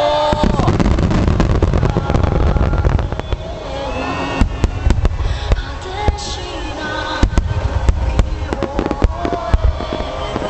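Large aerial fireworks shells bursting: a dense rumble of bangs for the first few seconds, then many sharp separate cracks and pops, with music playing underneath.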